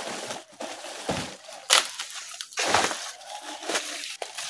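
Large banana leaves rustling and crackling as they are handled and laid down, with several louder crunches.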